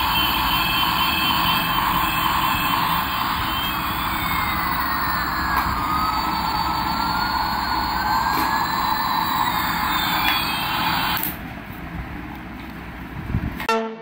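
Battery-operated toy Airbus A380 playing its electronic jet-engine sound effect: a steady rushing hum with high, siren-like whining tones gliding slowly up and down. It cuts off suddenly about eleven seconds in.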